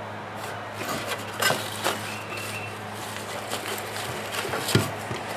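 Light scraping, rustling and knocking of cut sheet-metal muffler pieces and their fibrous lining being handled, in scattered short sounds, with a sharp knock near the end. A steady low hum runs underneath.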